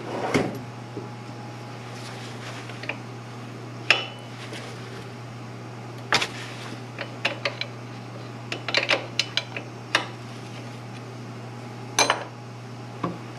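Irregular metallic clinks and knocks of hand tools against engine parts in a car's engine bay, with a quick run of them about two-thirds of the way through, over a steady low hum.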